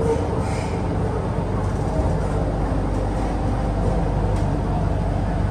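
Interior running noise of an MTR Island Line Q-Train (CRRC Qingdao Sifang TS91) in motion: a steady low rumble with a faint hum.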